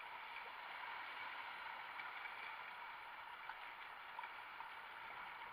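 River water rushing steadily around a paddled whitewater kayak, with a few small splashes late on.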